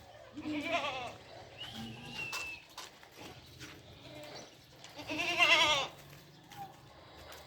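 Goats bleating: a short bleat about half a second in, and a louder, longer bleat with a wavering pitch about five seconds in.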